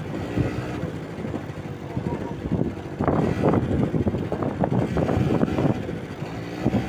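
Quad bike (ATV) engine running steadily at idle nearby, a constant low hum under the voices of people talking.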